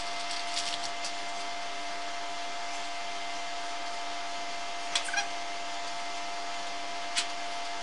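A steady electrical or machine hum with several fixed tones over a hiss, broken by a few sharp clicks, two about five seconds in and one near the end.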